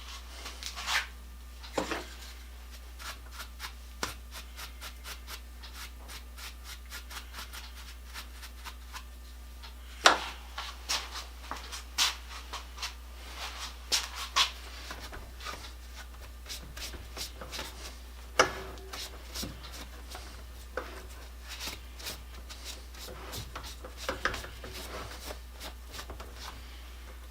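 Hand rubbing or sanding strokes, many short scrapes in runs of several a second, with a few sharper knocks, the loudest about ten seconds in and again around eighteen seconds.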